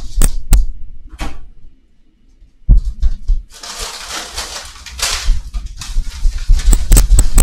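Handling noises: a few clicks and knocks, a loud thump, then a plastic bag of frozen shrimp rustling and crinkling as it is picked up and carried, with more clicks near the end.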